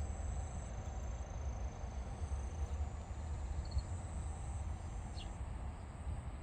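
Outdoor garden ambience: insects singing in a steady, high-pitched drone over a low rumble, with a few short chirps.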